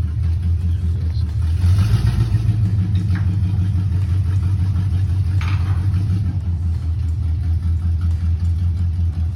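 An engine running steadily at idle, with a brief louder swell about two seconds in and a short hiss about five and a half seconds in.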